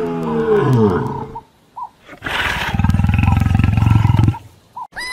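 Lion roaring: a falling moan in the first second and a half, then a louder, rough, pulsing roar from about two seconds in that lasts about two seconds.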